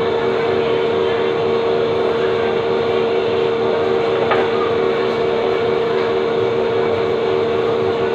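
Steady mechanical hum with a strong, unchanging pitched tone, like a running machine or fan, and a faint click about four seconds in.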